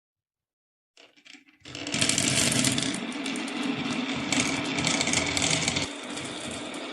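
Many marbles rolling and clattering down a toy marble run track: a few faint clicks, then a sudden dense, continuous rattle of rapid clicks from about two seconds in, easing a little near the end.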